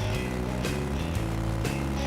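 Background music with a steady beat, about two drum hits a second, over held bass notes that change every half second or so.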